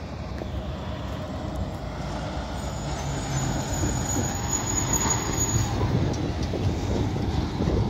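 Diesel dump truck with a pup trailer driving past, its engine and tyre rumble growing louder as it comes close, with a thin high whine for about three seconds as it approaches.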